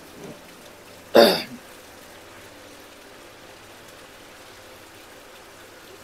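Air line bubbling steadily in a basin of water, with one short, loud noise about a second in.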